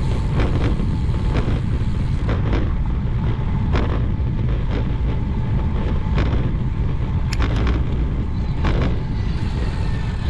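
Wind rushing over the camera microphone of a road bike being ridden, a steady low rumble, with irregular sharp knocks about once a second as the bike rolls along the concrete sidewalk.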